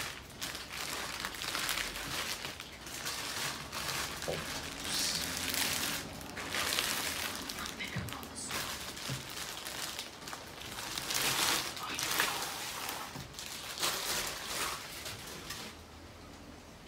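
Thin plastic wrap crinkling and rustling in repeated bursts as it is pulled off a soundbar, dying down near the end.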